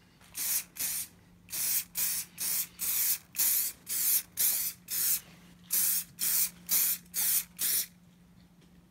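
Aerosol can of Muc-Off Fabric Protector spraying in a quick run of short hissing bursts, about three a second, stopping about a second before the end.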